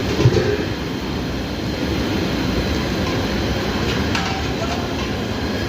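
Steady low rumbling noise with a brief knock about a quarter of a second in.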